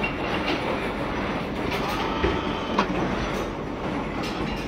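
Steady rumbling vehicle-ride noise with irregular sharp clacks every second or so, and a brief faint squeal about two seconds in.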